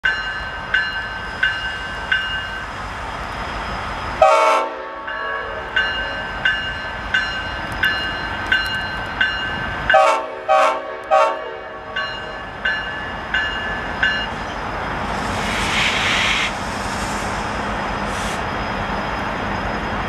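Norfolk Southern SD60E diesel locomotive departing, sounding its Leslie RS5T five-chime air horn: one short blast about four seconds in and three short blasts around ten seconds in. Between the blasts the locomotive bell rings about once every 0.7 seconds, and near the end a rushing noise and the steady run of the engine take over.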